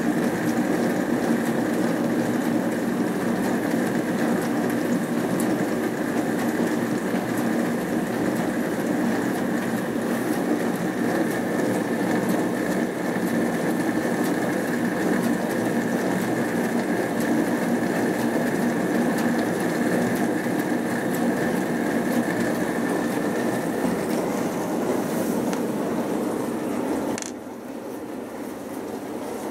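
Hotpoint Aquarius+ FDW70 dishwasher mid-wash: the circulation pump runs and water sprays inside, a steady hum and swish with a faint high whine above it. It drops noticeably quieter near the end.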